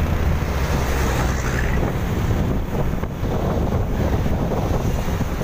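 Wind rushing over the microphone of a moving vehicle, steady and loud, over road and engine noise while driving behind a truck.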